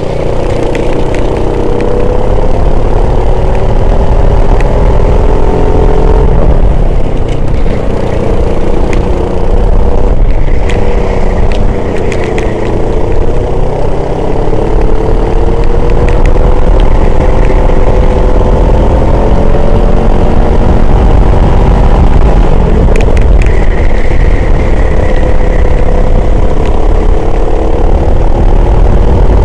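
Race vehicle's engine running hard, heard onboard, its pitch rising and falling several times as it accelerates and eases off, over a heavy low rumble.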